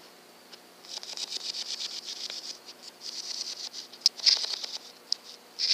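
Insects chirping in rapid trains of high, quick pulses that come and go in bursts, loudest about four seconds in. One sharp click sounds about four seconds in.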